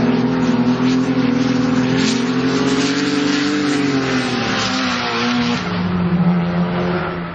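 Drift cars' engines running at high revs, the pitch swinging up and down as the cars slide, with the hiss and squeal of tyres spinning on the tarmac. Near the end the revs settle into a steadier low drone.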